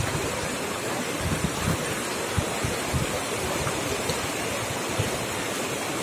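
Shallow mountain river rushing steadily over a bed of stones and boulders, with brief low rumbles of wind on the microphone.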